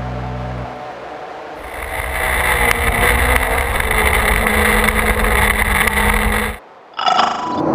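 Motorcycle engine running as the bike is ridden, with a steady rush of wind and road noise over it. The sound cuts out for a moment near the end, and a brief, different clip follows.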